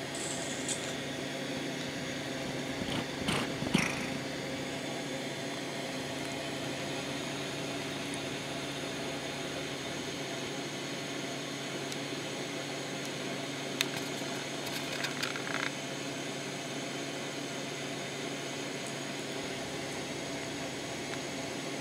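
Steady background hum and hiss like a fan or air conditioner running, with a few short rustles and clicks about three to four seconds in and again about fourteen to sixteen seconds in.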